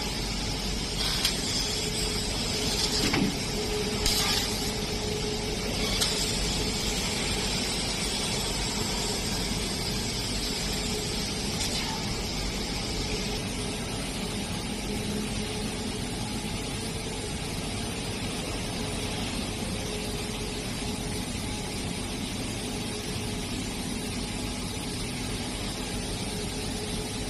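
Fiber laser cutting machine cutting carbon steel: a steady hiss and hum. There are a few sharp clicks in the first several seconds, and a higher hiss drops away about halfway through.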